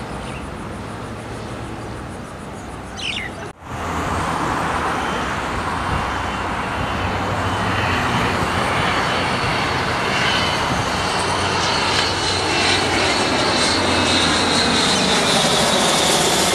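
Road traffic noise for the first few seconds, then, after a sudden cut, a Hawker 900 twin-engine business jet on landing approach: a steady jet rumble with a high turbine whine, growing louder as it comes closer.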